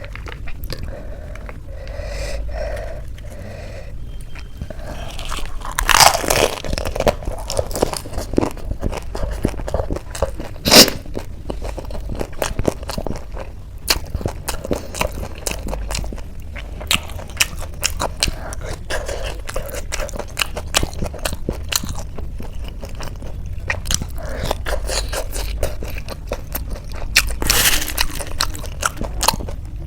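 Close-miked crunching and chewing of crisp Indian chaat snacks, a dense run of crackling bites and chews with a few louder crunches, the sharpest about eleven seconds in.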